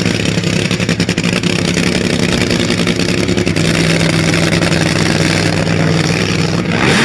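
Race Corvette's engine running steadily, its note dropping slightly about halfway through.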